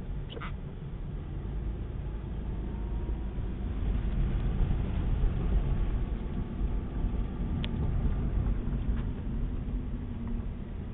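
Blizzard wind buffeting the microphone: a steady, fluctuating low rumble, with a couple of faint clicks.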